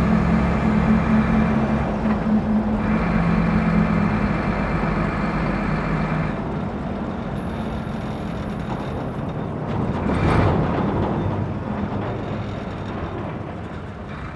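Truck driving, its engine a steady pitched drone under road noise, with loose chains banging. The engine tone drops away about six seconds in, a brief louder swell comes about ten seconds in, and the sound fades toward the end.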